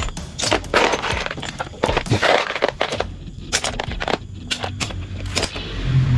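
Small metal motorcycle parts clinking and rattling as they are handled and dropped into a container: many sharp, irregular clicks in quick succession.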